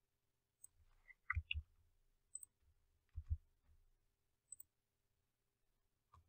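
Faint computer mouse and keyboard clicks: a few short sharp clicks about two seconds apart, with two pairs of duller thumps between them.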